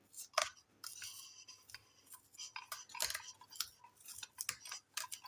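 Irregular light clicks, scrapes and crackles as the tape or cover on the underside of a ceiling fan is pulled open by hand.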